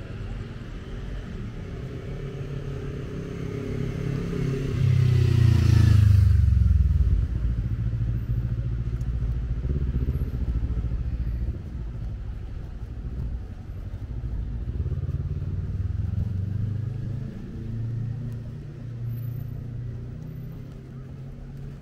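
Street traffic: a motor vehicle passes close about five seconds in, its engine note falling in pitch as it goes by, the loudest moment. Engines keep running afterwards, swelling again for a few seconds past the middle.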